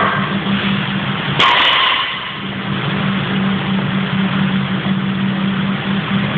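A loaded barbell of about 180 kg, with iron plates, is set down or dropped onto the rubber gym floor about a second and a half in, a single heavy impact. Under it runs a steady low mechanical drone with a hum.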